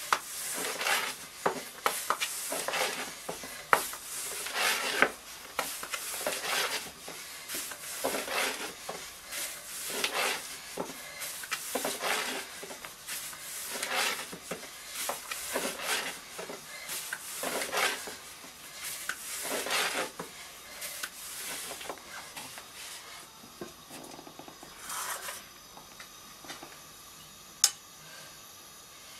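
A long thin rolling pin (oklava) rolling dough out on a floured wooden board: rhythmic rubbing strokes with light knocks, about one or two a second, that stop about two-thirds of the way through. A single sharp click near the end.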